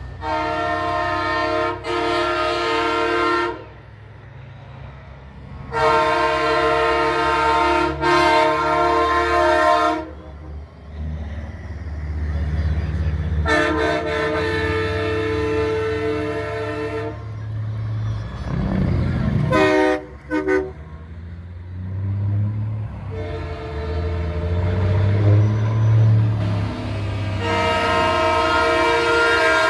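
Semi trucks' air horns blowing long chord blasts, several of them in pairs, with a few quick toots about two-thirds of the way through. A low diesel engine rumble runs underneath as the trucks roll past.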